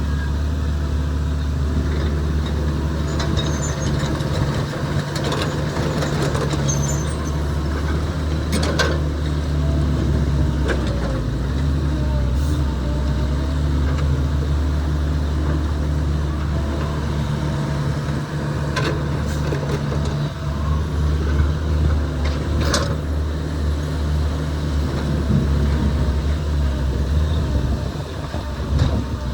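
Excavator's heavy diesel engine running steadily at work, with a few sharp knocks, the clearest about 9, 12.5, 19 and 23 seconds in.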